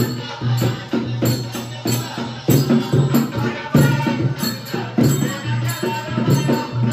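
Devotional folk song: voices singing over a steady hand-played beat on a stainless-steel barrel drum, with small hand cymbals jingling on the beats.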